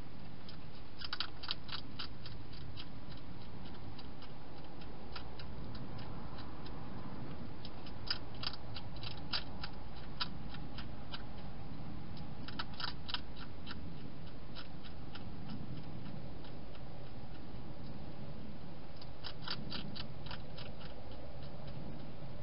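Wild hedgehog eating inside a clear plastic feeding box, crunching its food in several bursts of quick, sharp clicks over a steady background hiss.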